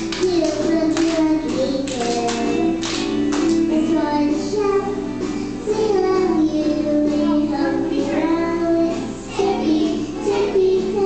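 A child singing a song over recorded backing music with a steady beat.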